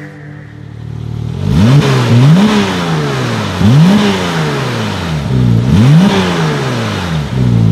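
Porsche 911 Turbo's twin-turbo flat-six running at idle while stationary, revved three times with quick rises in pitch that fall back toward idle each time.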